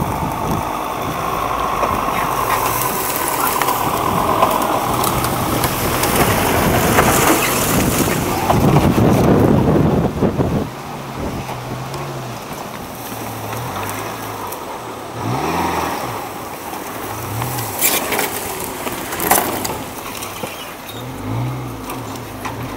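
Off-road 4x4 SUV engines working through rough, overgrown ground. For about the first ten seconds an engine runs hard under load with a dense rush of noise. After a sudden drop in level, an engine revs up and down again and again.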